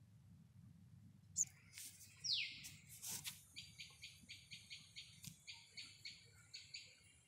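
A bird calling: one downward-sweeping note about two seconds in, then a quick run of short repeated high notes, about four a second, for some three seconds.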